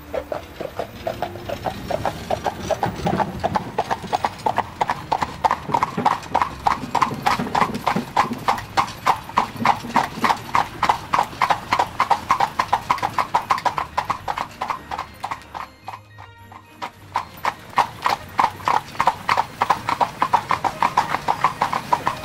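Hooves clip-clopping in a fast, even rhythm, as a horse trots on a hard surface, laid over pictures of tractors. The clopping stops for about a second two-thirds of the way through, then picks up again.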